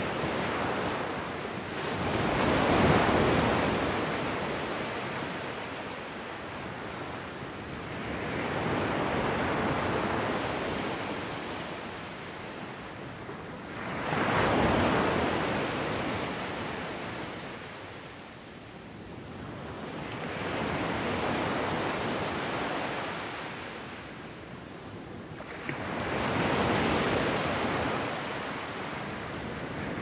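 Ocean waves washing in on a shore, the surf swelling and fading about every five to six seconds, some waves breaking more suddenly than others.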